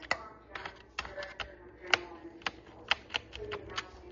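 Irregular sharp clicks and taps of hard plastic and small tools on a laptop being taken apart, about a dozen, the loudest about two seconds in.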